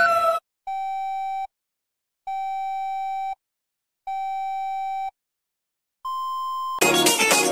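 Emergency-alert-style electronic tones: a steady two-tone alarm cuts off just after the start, then three long beeps of the same pitch, each about a second long with silent gaps, then one shorter, higher beep. Music starts near the end.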